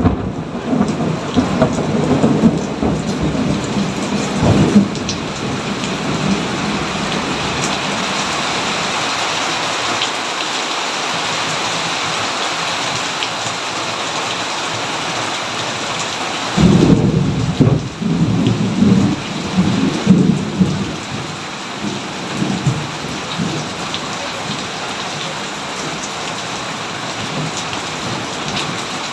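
Thunderstorm: steady rain falling, with thunder rumbling at the start and dying away after a few seconds. Just past the halfway point a new thunderclap breaks in suddenly and rolls on for several seconds before fading back into the rain.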